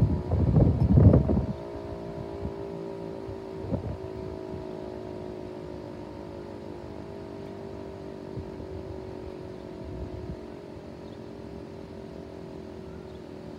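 Federal Signal 508 outdoor warning siren holding a steady chord without the rise and fall of rotation, because its rotator is broken, then slowly dropping in pitch as it winds down. Wind rumbles on the microphone for the first second or so.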